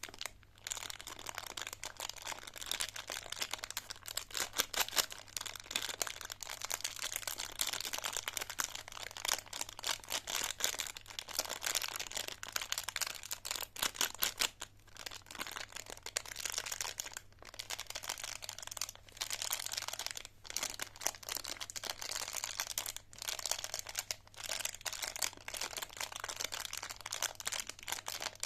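Plastic candy wrappers crinkling and crackling as wrapped lollipops are handled close to the microphone, a dense run of tiny clicks with a few short pauses, over a faint steady hum.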